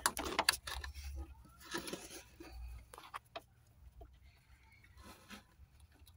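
A screwdriver backing out the small screw that holds a car's radiator fan relay: scattered light clicks and scrapes, busiest in the first second or two, then faint.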